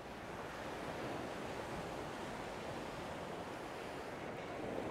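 Ocean surf breaking and washing up a sandy beach: a steady rushing wash that swells a little about half a second in.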